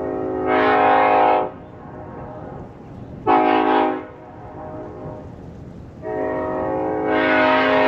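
Nathan K5LLA five-chime train air horn, all bells facing forward, blowing a steady multi-note chord in three blasts: one of about a second and a half, a short one, then a long one starting near the end that swells louder as it goes.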